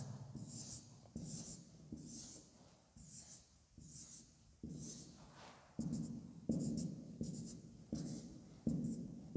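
Felt-tip marker squeaking on a whiteboard as small circles are drawn one after another, a short stroke about twice a second. From about halfway each stroke starts more sharply as the marker meets the board.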